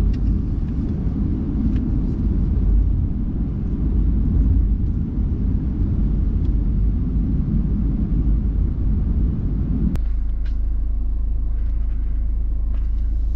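A car being driven: steady low road and engine rumble. About ten seconds in a sharp click, and the rumble turns into a steadier low hum.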